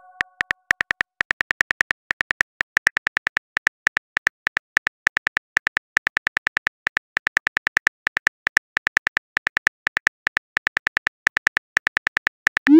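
Phone keyboard typing clicks from a texting app's sound effect, a sharp tick for each letter at about six a second, with a short rising swoosh right at the end as the message is sent.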